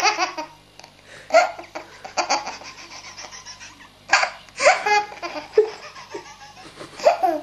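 A baby laughing in bursts, several fits of laughter with short pauses between, over a faint steady low hum.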